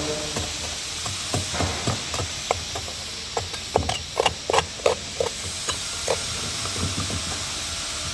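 Irregular knocks and clacks of hand tools working on a wooden beehive box, coming quickest about halfway through, over a steady hiss.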